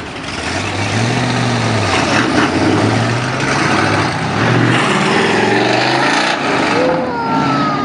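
Classic cars driving past and accelerating away, their engines revving up several times over loud exhaust and road noise.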